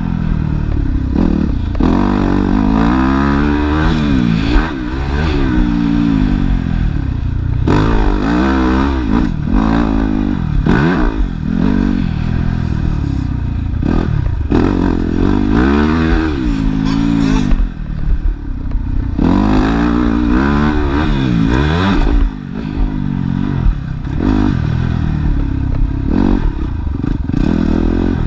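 Yamaha motocross bike engine heard from on board, its pitch rising and falling again and again as the throttle is opened and closed and gears are changed around the dirt track, with brief throttle-offs in the last third, over clatter from the bike and low rumble.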